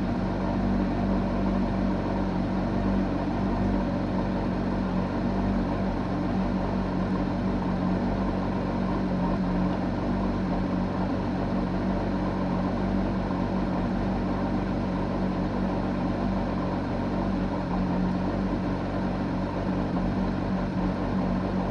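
Porsche 911 GT3 (991) flat-six engine and exhaust running steadily, heard inside the cabin as a low, even hum. The engine is still warming up, so its noise is settling lower.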